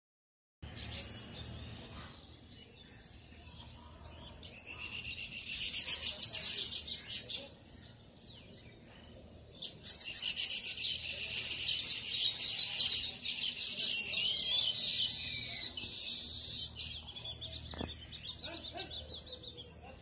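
Baya weavers chattering at their nest colony: bursts of rapid, high chirping notes. One short burst comes about five seconds in, and a long run starts about ten seconds in and stops just before the end.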